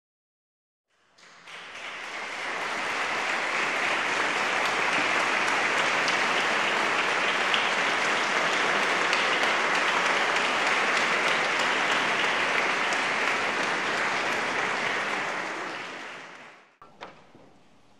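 Audience applauding steadily. The applause fades in about a second in and eases off, cut off sharply near the end.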